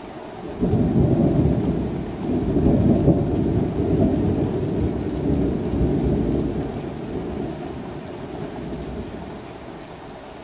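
A thunderclap breaks in suddenly about half a second in and rolls on as a deep rumble, swelling again a couple of seconds later and then fading away over several seconds, over steady rain.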